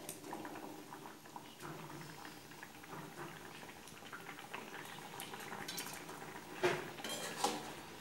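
Curry gravy bubbling at a simmer in a metal pan, with a metal spoon clinking against the pan a few times, loudest twice near the end.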